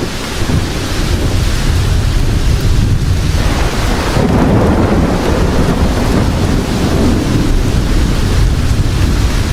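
Steady heavy rain with thunder rumbling low underneath, the rumble swelling about four seconds in.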